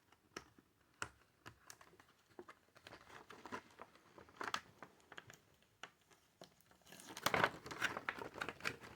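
Plastic game packaging crinkling and tape being peeled off, with scattered small clicks of handling; the crinkling grows louder and denser about seven seconds in.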